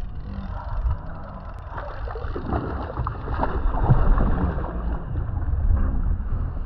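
A hooked fish splashing and thrashing at the surface beside a kayak, loudest about four seconds in, over a steady low rumble of wind on the microphone.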